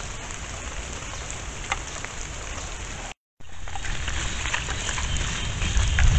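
Steady rain-like hiss with scattered faint ticks. The sound cuts out completely for a moment about three seconds in, and a low rumble swells near the end.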